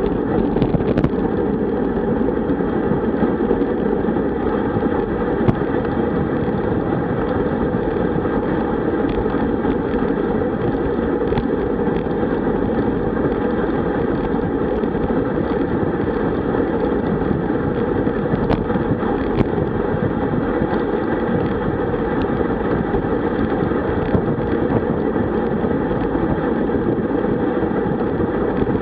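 Steady wind rush over a bike-mounted camera's microphone on a road bike at about 45 km/h, mixed with tyre noise on asphalt, with a few scattered sharp clicks.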